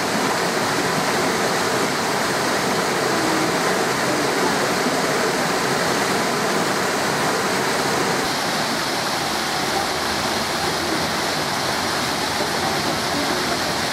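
Steady rush of running water in the walrus pool, its tone shifting slightly about eight seconds in.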